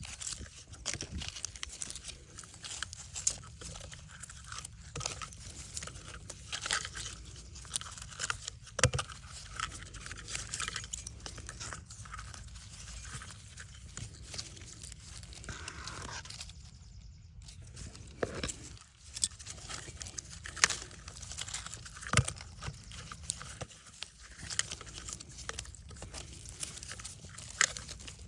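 Irregular close-up clicks, taps and crinkling, as of hands handling small materials and tools.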